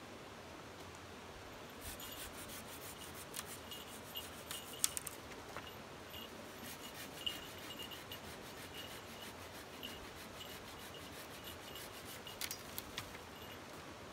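Knife scraping and shaving a piece of wood by hand: a run of short, irregular scraping strokes with small clicks, starting about two seconds in and stopping near the end.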